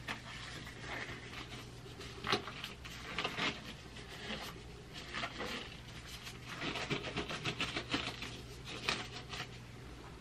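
Thin plastic disposable gloves crinkling and rustling as they are pulled onto the hands, in irregular bursts of crackle. A steady low hum runs underneath.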